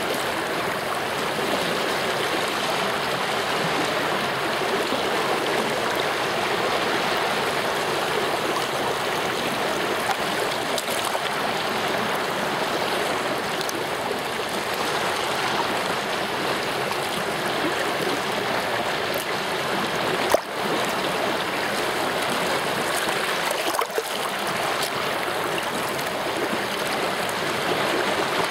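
Fast mountain stream in spate, swollen with overnight rain, rushing and splashing close by with a steady, even rush of water. Two short knocks come about two-thirds of the way through.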